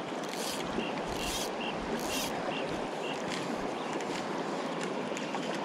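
River water flowing with a steady rush.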